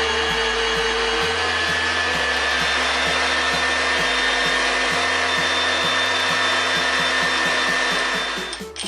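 Electric meat grinder running steadily with a whirring motor noise, its pitch shifting a little partway through, until it stops shortly before the end.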